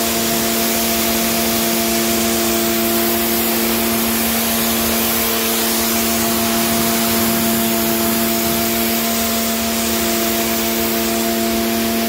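Pressure washer running steadily, its pump motor humming under the hiss of the water jet from the lance spraying onto tile and concrete paving.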